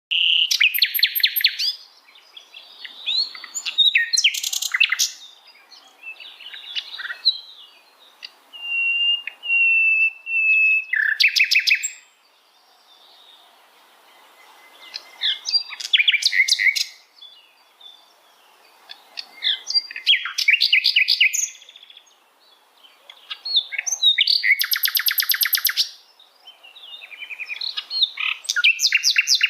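A sikatan londo flycatcher singing vigorously in repeated bouts: rapid, buzzy trills and chattering phrases, with a run of steady whistled notes about a third of the way in, broken by short pauses.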